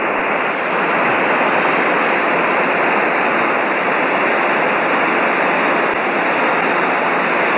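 Steady, loud hiss of radio static coming through the aircraft's headset intercom: the radio's squelch is open and not shutting out the noise, which the pilot calls pretty annoying.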